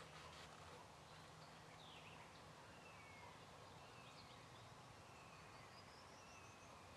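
Near silence outdoors: a steady faint hiss with a few brief, faint bird chirps scattered through it.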